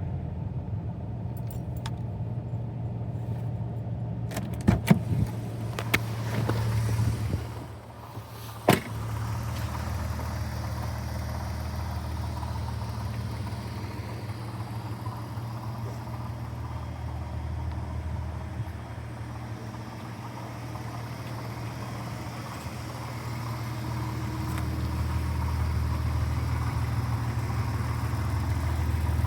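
Porsche Boxster 2.5 flat-six engine idling steadily with a metallic rattle, which the owner takes for a failing water pump. A few sharp clicks come about five seconds in and again near nine seconds.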